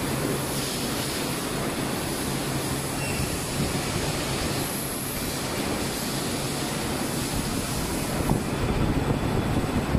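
Rotational moulding machine running in the factory: a steady mechanical rumble and noise with a low hum under it, growing louder near the end.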